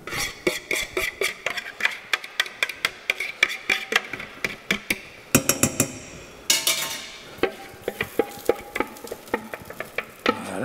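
Rapid clicks and knocks of a wooden spoon and utensils against a saucepan and a bowl as egg-and-pecorino cream is poured and scraped into hot spaghetti and stirred in. A short hiss about six and a half seconds in as the mixture hits the hot pan.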